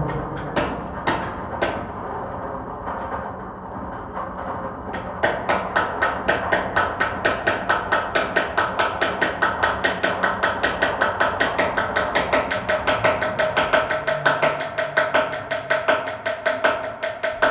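Four-headed spinning hammer rotor driving a nail into a wooden block: a rapid train of metal-on-metal strikes. They come sparser and softer at first, then from about five seconds in settle into a steady, louder run of about four or five hits a second.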